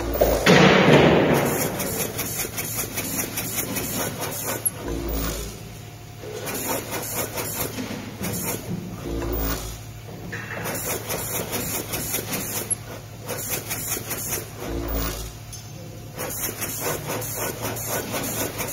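Pick-and-place machine running in fast mode: its head and suction nozzle shuttle between parts tray and fixture in a rapid stream of ticks and clicks over a steady low hum, with a few brief pauses. A loud rushing burst of noise comes about half a second in.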